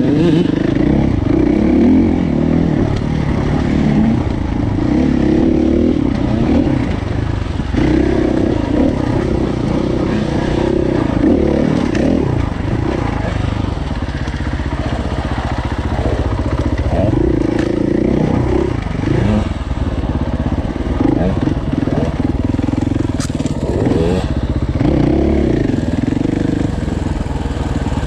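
Dirt bike engine running under load close to the microphone, its revs rising and falling again and again as the throttle is worked.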